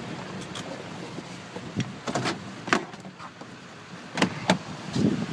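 Several sharp clicks and knocks from handling inside a stopped car, over a faint low rumble.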